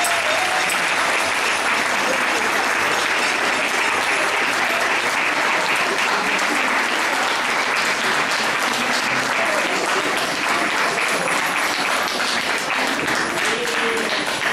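Audience applauding steadily, a dense sustained clapping with a few voices mixed in.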